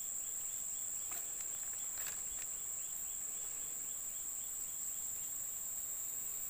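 Steady, high-pitched drone of an insect chorus, with a fainter chirping repeated several times a second over the first few seconds.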